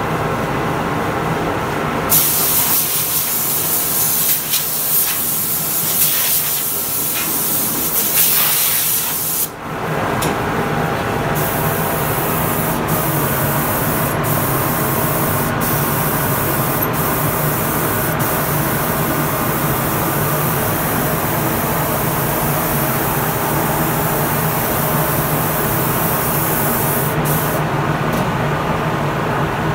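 Compressed-air gravity-feed spray gun hissing as it sprays finish onto a wooden tool chest. It starts about two seconds in, pauses briefly near the middle, then sprays on with a few short breaks over a steady low hum.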